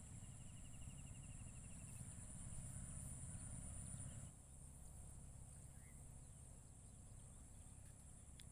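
Near silence: faint outdoor ambience with a steady high-pitched insect drone and a low rumble. A short rapid trill is heard in the first two seconds, and the rumble drops about four seconds in.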